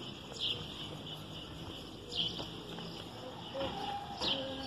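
Outdoor ambience: three short, high, falling chirps about two seconds apart over a steady high-pitched hum, with faint distant voices near the end.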